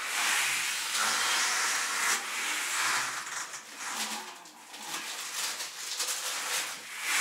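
Plastic grocery bag rustling and crinkling in uneven bursts as items are handled and taken out of it.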